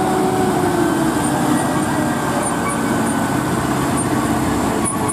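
Heavy lorry's diesel engine running hard and steady as the truck works to pull out of deep mud.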